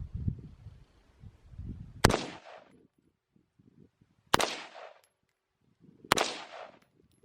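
Three single gunshots from a firearm, about two seconds apart, each a sharp crack with a short echoing tail.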